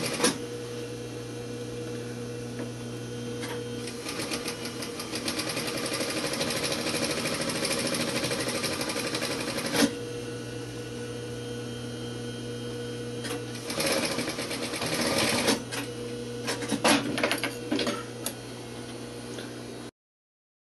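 Industrial sewing machine stitching a seam in canvas: a long steady run of rapid needle chatter over the motor's hum, then a pause and a few shorter bursts of stitching, with some sharp clicks near the end.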